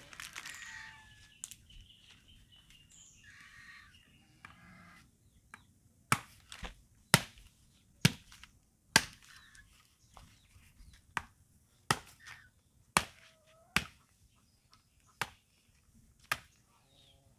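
A blade chopping into a dry coconut's husk to strip it: sharp, separate strikes about once a second, starting about six seconds in. The de-husking is hard work.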